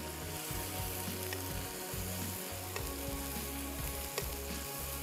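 Onion, garlic, tomato and spice masala frying in oil in a pan: a steady sizzle, with a few faint clicks.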